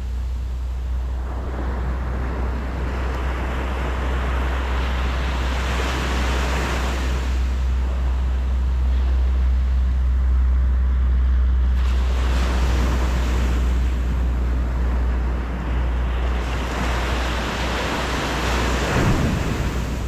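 Atlantic Ocean surf breaking on a beach: three waves in turn, each a rush of noise that builds and fades, over a steady low rumble.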